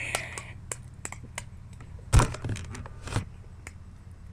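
Light clicks and taps of things being handled, with two louder dull knocks about two and three seconds in.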